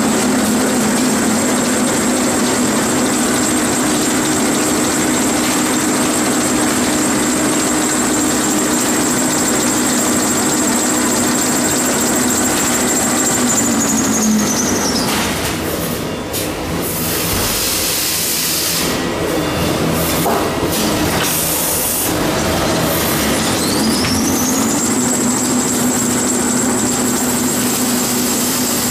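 Automatic toilet-paper rewinder running with a steady high whine over a hum. About halfway through it winds down, with knocks and clatter while it is slowed, then whines back up to full speed. This is the pattern of a rewinder's cycle at the end of a log, where it slows to change over to a new core and then speeds up again.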